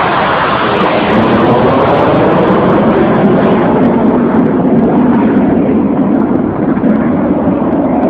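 Loud jet engine noise of a low-flying fighter jet, falling in pitch over the first few seconds as the jet passes and flies away, then going on steadily.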